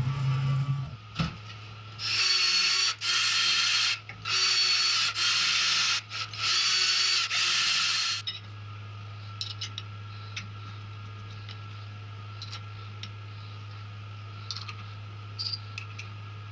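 Cordless drill driving an M6 spiral tap into aluminium, its motor whining in three pairs of roughly one-second runs with short stops between. A steady low hum and a few light clicks follow.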